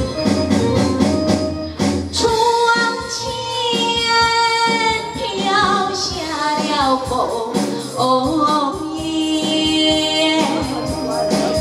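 A woman singing a Taiwanese opera (gezaixi) aria into a microphone, amplified over a PA, with long held notes that bend in pitch. Instrumental accompaniment plays underneath.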